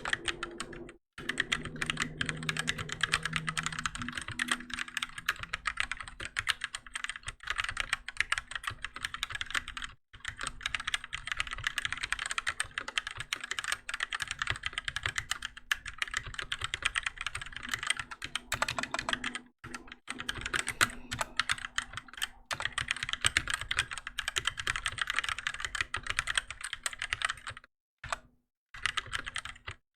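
Continuous fast typing on a Keychron K6 mechanical keyboard with Gateron Red linear switches: a dense stream of key clacks, broken by a few brief pauses.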